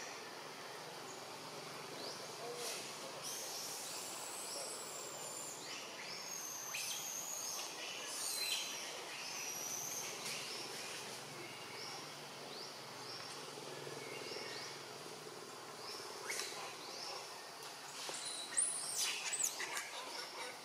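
Forest ambience: birds chirping and calling with short, sweeping high notes, over a steady background hiss, with a louder cluster of calls near the end.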